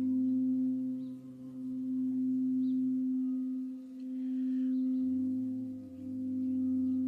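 White frosted crystal singing bowl sung by rubbing a mallet around its rim: one sustained, steady hum that swells and dips about every two seconds.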